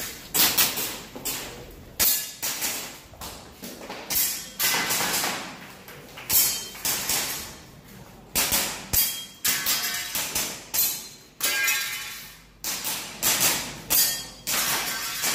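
Airsoft gas pistol firing a long string of shots, some in quick pairs, each a sharp crack with a short ringing tail.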